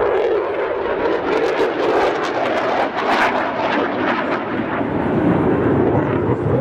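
Jet engine noise from an F-16 and a MiG-29 manoeuvring overhead: a loud, steady rush with a crackling texture through the middle seconds.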